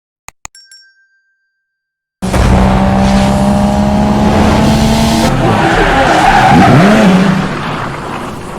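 A loud car sound, an engine with tyre squeal, that starts abruptly about two seconds in, swoops in pitch and fades out near the end.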